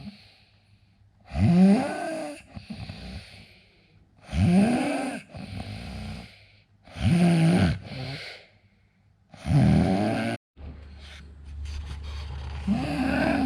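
A man snoring in his sleep: five rasping snores on the in-breath, about one every two and a half to three seconds, each followed by a softer breath out. After the fourth snore the sound cuts off abruptly and a steady low hum runs beneath the last one.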